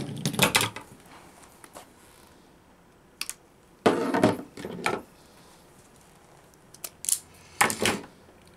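Hands handling loose wiring and hand tools on a wooden tabletop, making four short bursts of clatter and clicks a few seconds apart, while a short piece of wire is picked out for a splice.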